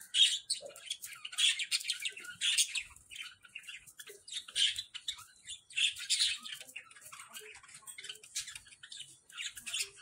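A flock of budgerigars chirping and chattering: many short, high-pitched calls overlapping almost without a break.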